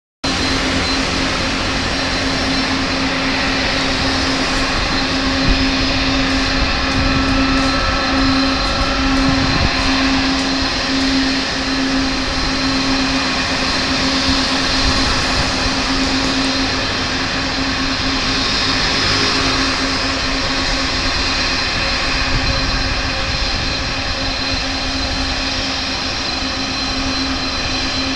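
Jet airliner engines running at taxi power, the CFM56 turbofans of a Boeing 737-900ER: a steady jet rumble with a low hum and a thin, steady high whine.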